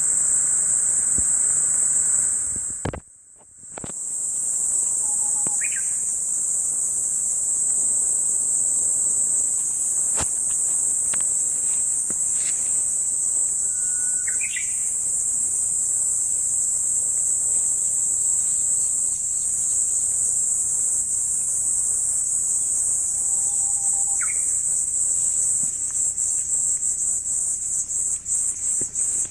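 Insects shrilling in a steady high-pitched drone, which drops out briefly about three seconds in and turns into a rapid pulsing near the end. A bird chirps a few times.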